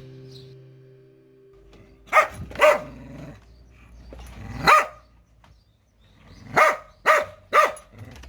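A Jindo dog barking: six short, sharp barks, two close together, then a single one, then three in quick succession. Background music fades out at the start.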